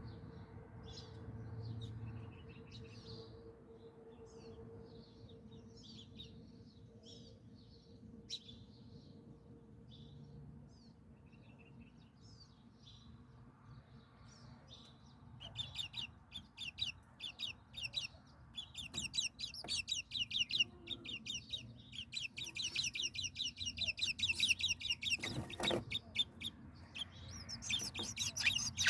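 Small birds chirping: scattered short high chirps at first, then many birds chirping rapidly and continuously together from about halfway, growing louder toward the end.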